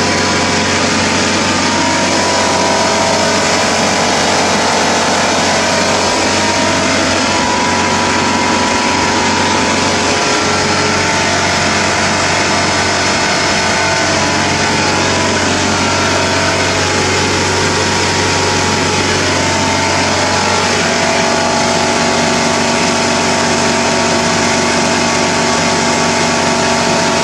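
Honda CBR600 F3's inline-four engine running steadily, with a slight change in pitch here and there.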